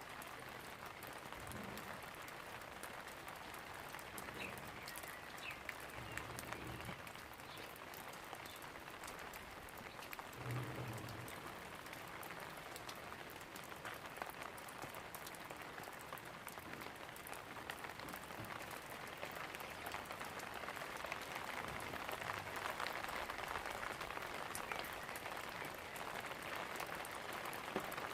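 Steady rain falling, a dense hiss of drops that grows somewhat heavier in the last third, with a few brief low thumps.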